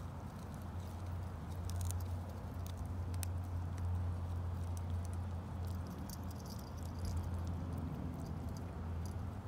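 Puppy gnawing a wooden stick: scattered small clicks and cracks of teeth on wood, over a steady low hum.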